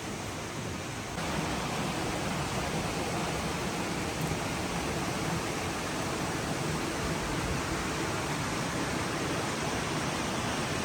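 Steady rushing of river water, an even hiss that gets louder about a second in and then holds.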